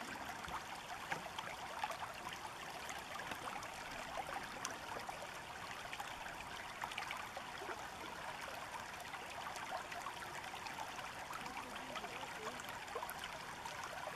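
Water of a shallow river running over rocks: a steady rush.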